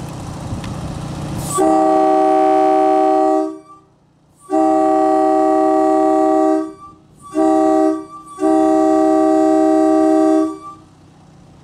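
Railway air horn fed by a portable air compressor, blowing the grade-crossing pattern: two long blasts, one short, one long. Each blast is a steady chord of several notes.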